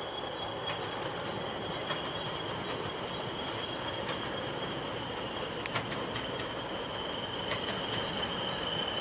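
English Electric Class 40 diesel locomotive approaching in the distance: a steady high whistle over the low rumble of the engine and train, growing slightly stronger near the end, with scattered faint clicks.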